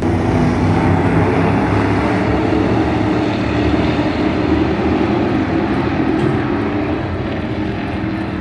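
A pack of dirt-track race cars running laps together, many engines droning at once, a little quieter near the end.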